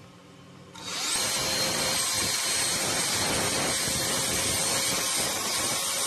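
Homemade 12-volt mini vacuum cleaner with a small DC motor, switched on about a second in and then running steadily: a loud rush of air with a thin high whine that rises briefly as the motor spins up.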